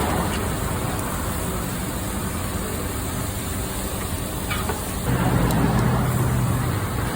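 Road traffic noise, with a motor vehicle's engine running close by and humming steadily from about five seconds in.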